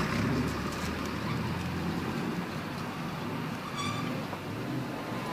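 Street traffic noise: a steady low vehicle engine rumble under general road noise, easing off after about two seconds.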